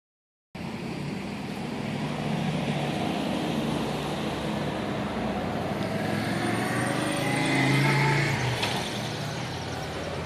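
Street traffic: cars running past with a steady low engine hum, swelling as a vehicle goes by about eight seconds in.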